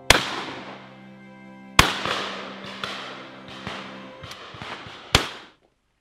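Shotguns firing at driven pheasants: three loud shots, near the start, just under two seconds in and about five seconds in, each with a long fading tail, with fainter shots from other guns between them. Background music plays under the shots for the first four seconds, and the sound cuts off suddenly just before the end.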